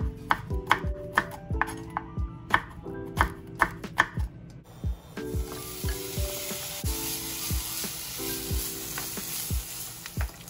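A chef's knife slicing garlic cloves on a bamboo cutting board: a quick series of sharp cuts. About halfway through this gives way to raw pork belly sizzling steadily in a hot non-stick pan. Soft background music plays throughout.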